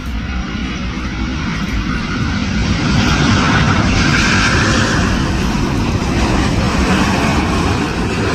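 Boeing 787 Dreamliner airliner passing low overhead on final approach, gear down: a loud jet roar with a low rumble that swells about three seconds in and holds.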